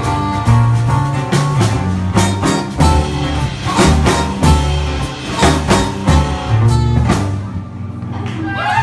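Live band of acoustic guitars, drum kit and trumpet playing the closing bars of a song, with steady drum strikes under held notes; the music dies away about seven seconds in as the song ends.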